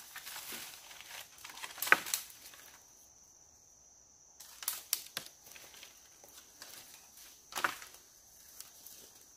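Rustling and crinkling handling noises broken by several sharp snaps, the loudest about two seconds in and again near the end, over a faint steady high whine.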